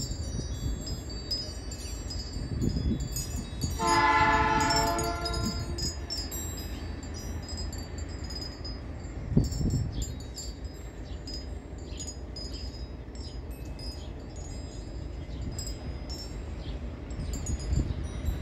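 Diesel locomotive's multi-note air horn sounding one blast of about a second and a half, about four seconds in, over a steady low rumble.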